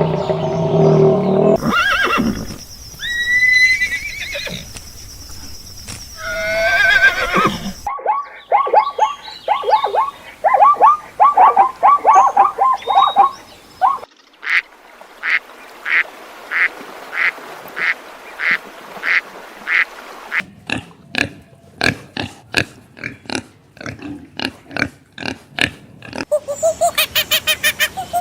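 A run of different animal calls, edited one after another and changing every few seconds: calls that slide in pitch, a quick series of rapid calls, evenly spaced single high calls, a stretch of sharp clicks or knocks, and fast repeated calls near the end.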